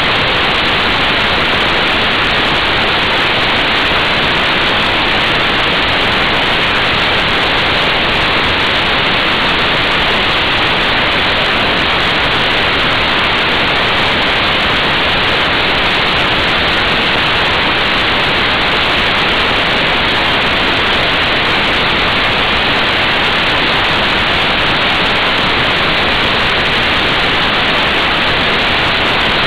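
Steady, loud wind rush over the microphone of an action camera on a motorcycle at motorway speed: an even hiss throughout, with no engine note standing out.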